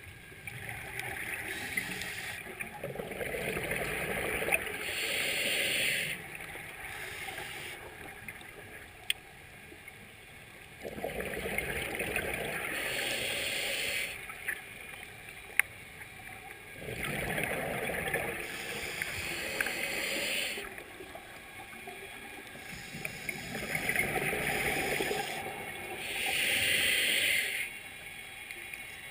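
Scuba diver breathing through a regulator underwater: four breaths a few seconds apart, each a hiss of inhaled air and a gurgle of exhaled bubbles, with quieter gaps between.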